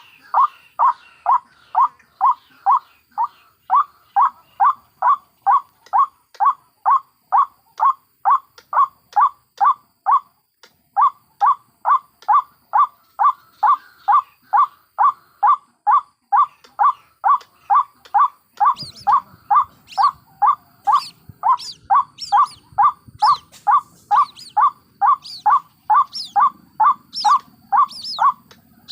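White-breasted waterhens calling: a fast, even series of loud, repeated calls, about two and a half a second, pausing briefly about a third of the way in. In the last third, higher-pitched calls join the series along with a low rumble.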